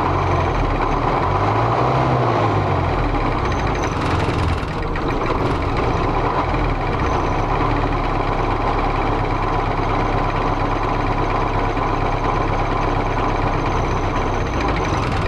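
ZIL Bychok truck's four-cylinder diesel running at idle with an injector line cracked loose to find the dead cylinder. The idle won't hold properly: the engine misfires and is close to stalling.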